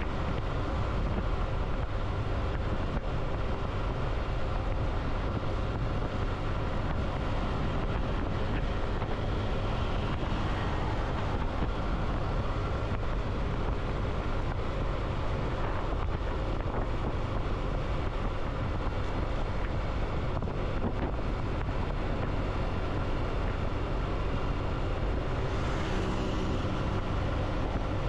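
Steady engine and road noise of a vehicle being ridden at a constant pace, with wind rushing over the microphone. A brief rise in hiss comes near the end.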